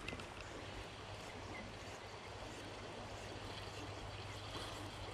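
Steady rush of a small creek's flowing water.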